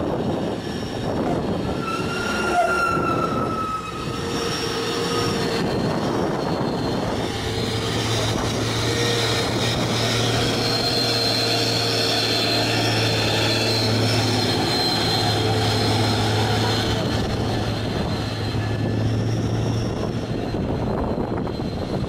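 Heavy tandem-axle diesel cargo trucks labouring up a steep climb under load: a deep, steady engine drone that is strongest from about a third of the way in until near the end, as one truck passes close, with high whining tones over it.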